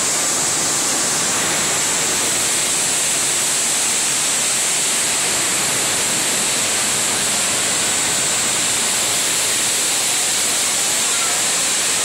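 Swirling water fountain: a column of water pouring from a glass-and-steel bowl in the ceiling down into the pool below, a steady, even rush of falling, splashing water.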